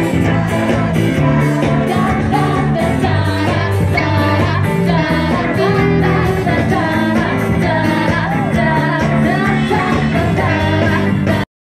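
Live band playing pop-rock with a singer over a steady drum beat; the sound cuts off suddenly near the end.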